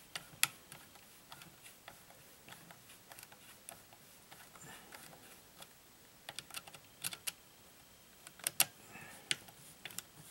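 Small irregular clicks and taps of a hex driver turning screws down into the chassis of a Traxxas Rustler 4x4 RC truck, metal tool on screw heads and parts. The sharpest ticks come in a cluster a little past six seconds in and again around eight and a half seconds in.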